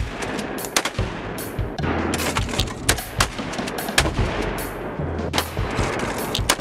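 A string of sharp gunshots, shotgun shots at clay targets and pistol shots at steel targets, over background music.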